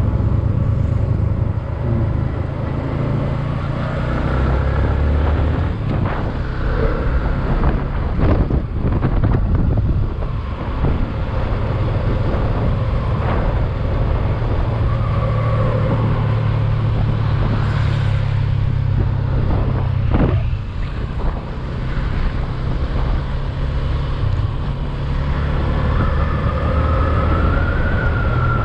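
Motor scooter riding along the road: heavy wind rumble on the microphone over the engine's whine, which wavers up and down in pitch as the speed changes, most clearly near the end.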